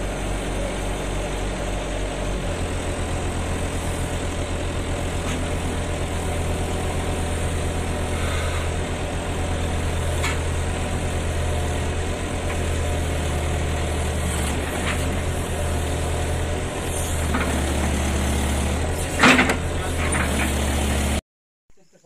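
Hydraulic excavator's diesel engine running steadily close by, its note changing slightly about two seconds in, with a few brief knocks over it, the loudest near the end. The engine sound cuts off abruptly just before the end.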